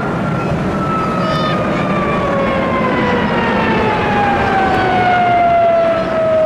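Lockheed TF-104 Starfighter's J79 turbojet flying past with its howl: a strong whistling tone over broad jet noise, falling steadily in pitch as the jet passes.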